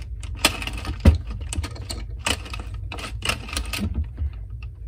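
Addi Express 22-needle circular knitting machine being hand-cranked: its plastic needles and carriage click and clack in quick, irregular runs as they knit, thinning out near the end. The crank gets a little stuck on this first waste-yarn pass.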